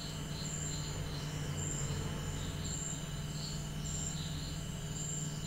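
Crickets chirping in the background: a short high chirp repeating about once a second, with quicker, softer chirps beneath it, over a steady low hum.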